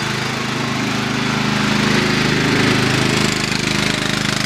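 Craftsman riding lawn mower's engine running steadily as the mower drives and turns with its rear axle welded solid, with a hiss over the engine that swells a little around the middle.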